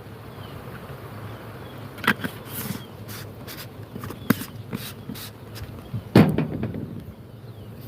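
Handling noises: a scatter of small clicks and taps from about two seconds in, and one louder knock with a short rustle about six seconds in.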